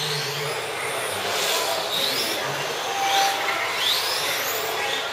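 Electric radio-controlled race car lapping a track, its motor whine rising in pitch several times as it accelerates out of the corners.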